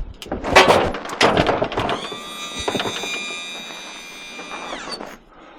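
Metal scrap clattering and knocking for about two seconds, then a steady electric motor whine that holds for nearly three seconds and winds down in pitch as it stops.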